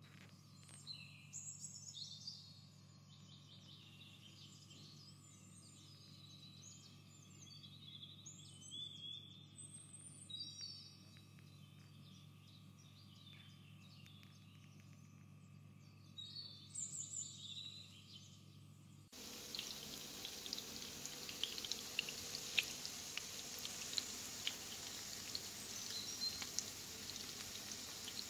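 Birds chirping in short, quick phrases over a steady electrical hum. About two-thirds of the way through it cuts to hot oil sizzling and crackling, with breaded chicken pieces and small round balls frying in a pan.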